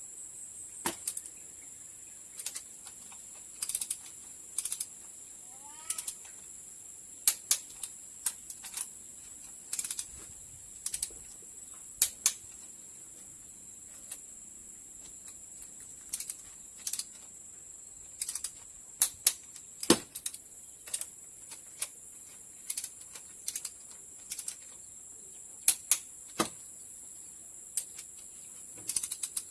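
Irregular sharp clicks and clinks of hand tools and engine parts being handled, in short clusters, over a steady high insect trill.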